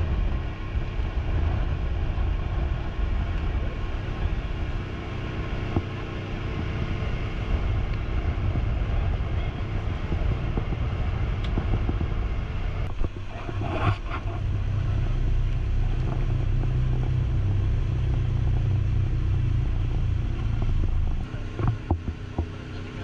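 Speedboat with an outboard motor running at speed: a steady low engine drone under the rush of the hull and wake over the water.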